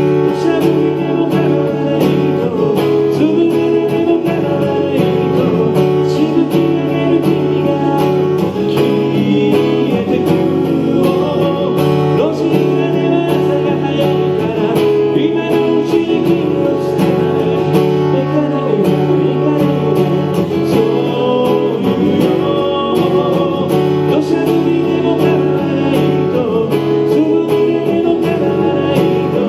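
Acoustic guitar being strummed, with a voice singing a song over it.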